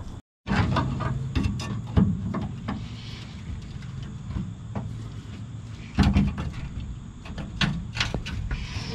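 Hand tools clanking and scraping against the rusty shock absorber mount of a Ford F-250 truck: scattered metallic knocks, the loudest about two and six seconds in, over a steady low hum.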